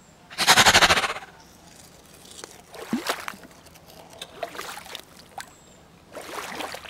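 A short, loud, rasping burst about half a second in, then soft trickling and splashing of shallow puddle water as a plastic toy crocodile is pushed into it.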